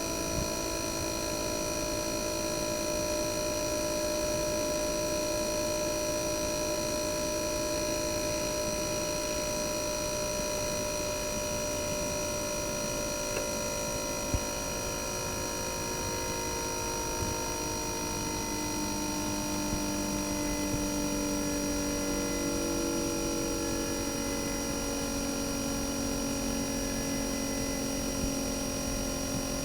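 RECHI 43W26SH single-rotary inverter compressor of a Sharp AU-J25XY air-conditioner outdoor unit running with its casing opened, a steady hum with several whining tones and a high whine. From about halfway its tones glide slowly lower in pitch, and there is a single click in the middle.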